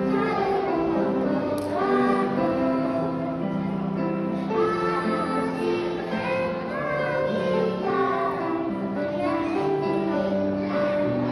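Small children's chorus singing a Korean children's song together over musical accompaniment, with held notes running continuously.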